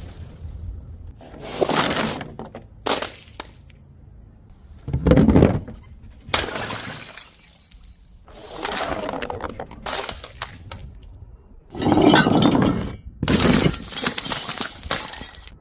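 Glass bottles shattering one after another, about eight separate smashes, each a sudden crash that trails off; the heaviest comes about five seconds in.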